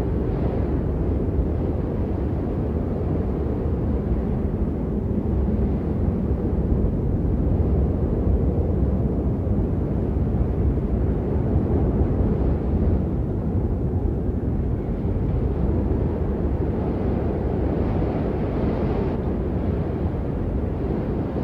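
Wind blowing steadily as a low, deep rumble with small swells in strength.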